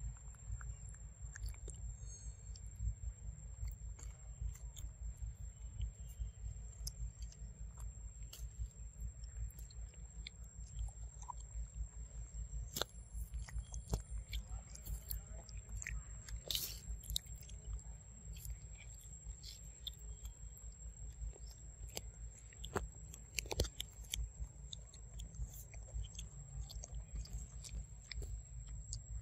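Macaques chewing ripe fruit right at the microphone: irregular wet smacks and small crunching clicks over a steady low rumble.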